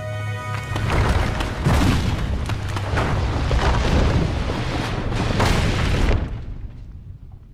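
A cave collapsing in a film soundtrack: a deep rumble of falling rock with several heavy crashes, which breaks in about a second in and stops abruptly near the end. Held orchestral music fades out as the rumble begins.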